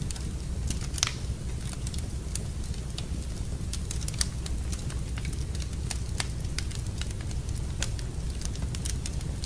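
Wood fire in a fireplace crackling, with sharp pops scattered irregularly over a steady low rumble; the loudest pop comes about a second in.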